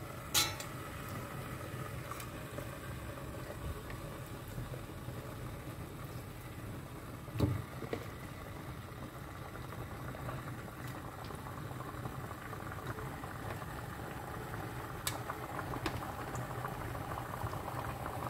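Raw turkey pieces being set one by one into an enamel pot, with a soft knock about seven and a half seconds in and a few lighter clicks. Underneath is a steady low bubbling hiss of a pot simmering on the stove.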